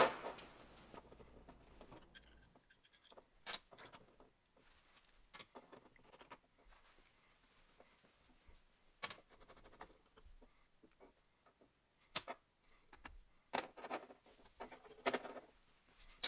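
Scattered light clicks and taps as the small metal parts of an antique oil can are handled and taken apart, with a few louder clattering knocks near the end.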